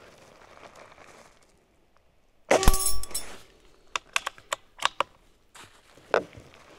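Benjamin Marauder PCP air rifle fired once about two and a half seconds in: a sharp report with a short metallic ring, the pellet hitting a steel knockdown target. Then a quick series of sharp clicks as the bolt is cycled to load the next pellet, with one more click near the end.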